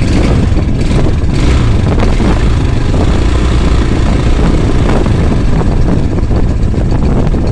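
Honda CRF230F's air-cooled single-cylinder four-stroke engine running steadily at a fast idle of about 1,600 rpm just after a cold start, on full choke. The owner judges it a bit too much choke.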